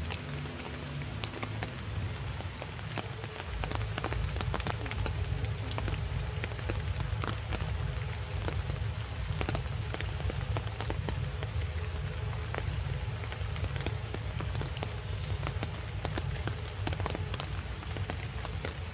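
Water drops pattering on leaves and stones after rain, many small ticks over a steady hiss, with a low rumble underneath that grows heavier a few seconds in.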